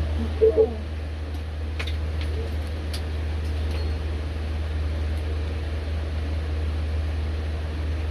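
Steady low hum of a fan or motor, with a short two-part blip about half a second in and a few faint clicks a couple of seconds later.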